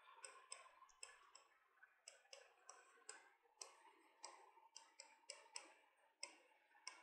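Faint, irregular taps and short scratches of a marker pen writing on a board, about two or three strokes a second.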